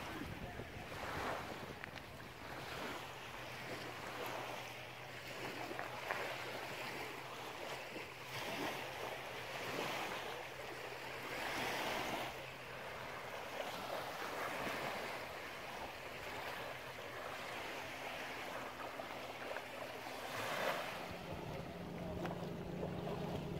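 Wind on the microphone over lapping lake water, the noise swelling and easing every second or two, with a faint low steady hum underneath. A second, louder low hum joins near the end.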